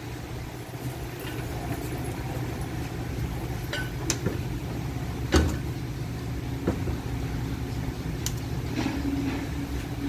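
Metal parts of a transmission being handled on a workbench: a few sharp clinks and knocks, the loudest about halfway through, over a steady low hum. A second steady low hum joins about two-thirds of the way in.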